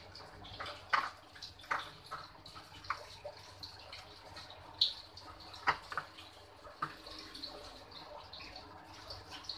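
Spatula scraping and tapping around a non-stick frying pan while ground melon seeds are stirred into sugar syrup, giving irregular sharp clicks and scrapes, a few louder than the rest.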